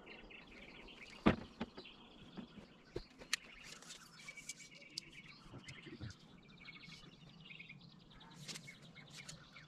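Birds chirping and trilling in quiet open air, with a few faint clicks.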